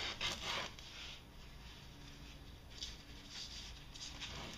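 A cloth shop rag wiping and rubbing over an ATV engine case: short scuffing strokes, loudest in the first second, with fainter ones near the end.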